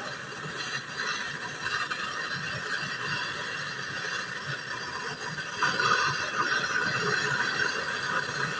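Brazing torch flame hissing steadily while it heats a refrigerator compressor's tube joints to unsolder them; the hiss gets louder a little over halfway through.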